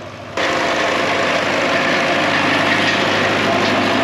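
Tractor engine running steadily, cutting in abruptly about half a second in.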